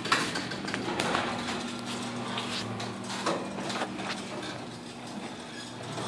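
Chamberlain Whisper Drive belt-drive garage door opener raising a sectional garage door: a steady motor hum under an uneven clatter of the door moving along its steel tracks.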